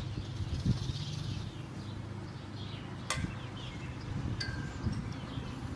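Outdoor ambience: faint bird chirps over a steady low hum, with a sharp clink about three seconds in and a short ringing tick a second and a half later.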